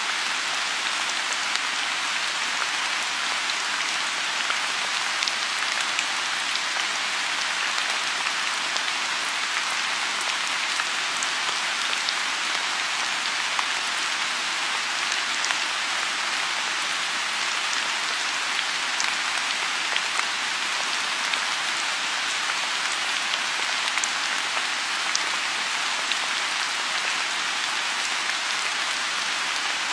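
Steady rain falling on a pond, an even hiss with scattered individual drop ticks.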